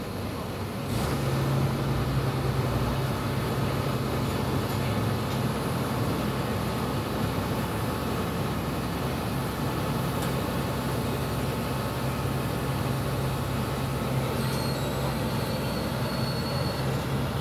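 XCMG XE215C hydraulic excavator's diesel engine running steadily under load as the machine crawls forward on its steel tracks along a truck deck, the engine note picking up about a second in. A faint high whistle comes in briefly near the end.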